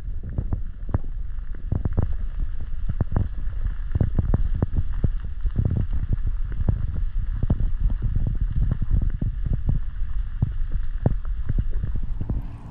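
Swift stream water heard through a camera submerged in a waterproof housing: a muffled low rumble with frequent, irregular sharp clicks and knocks.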